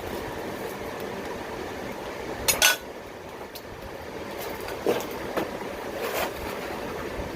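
Electric forge blower running steadily, pushing air through a coal fire, with a few sharp metallic clinks, the loudest a little over two seconds in.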